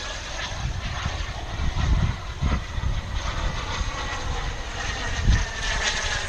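Model turbine jet engine whining as the RC jet flies past, its tone dipping slightly in pitch near the end. Wind buffets the microphone in gusts.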